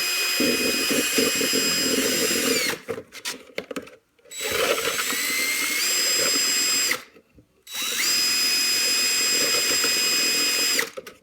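Electric drill spinning a mixing paddle in short bursts. It is running at first and stops a quarter of the way in, then runs twice more for about three seconds each. The motor whine rises as it spins up and drops as it stops, over a rough churning noise from the paddle.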